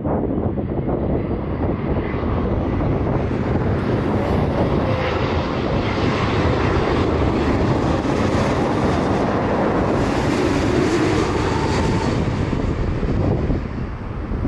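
Boeing 787-8 airliner on final approach passing low overhead, gear down, its twin turbofan engines running. The engine noise swells to a peak past the middle, with a faint falling whine, and eases off near the end.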